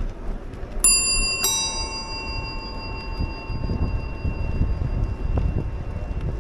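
Bicycle bell struck twice, about half a second apart, its ring fading slowly over several seconds, over the low rumble of wind on the microphone while riding.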